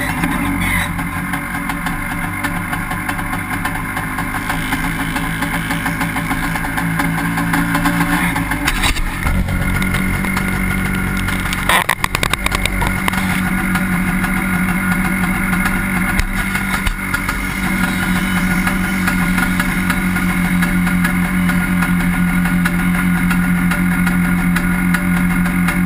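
Honda Pilot FL400 dune buggy's engine running under throttle as it drives across sand. The engine note shifts about a third of the way in, there is a brief rattle near the middle, and then it holds steady for the rest.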